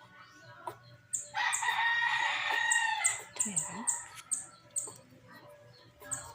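A rooster crowing once, a loud call of about two seconds starting about a second in, with short high-pitched chirps scattered around it.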